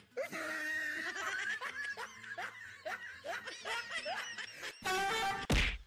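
Snickering laughter: a run of short, rising chuckles, about three a second, then a louder, higher laugh and a brief heavy thump just before the end.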